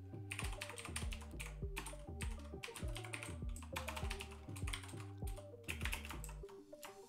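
Typing on a computer keyboard: quick, irregular key clicks as a line of code is entered, with background music underneath.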